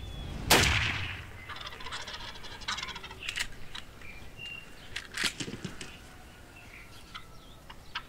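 A single shotgun shot about half a second in, the loudest sound here, followed by wild turkey toms gobbling in rapid rattling bursts and a few sharp knocks.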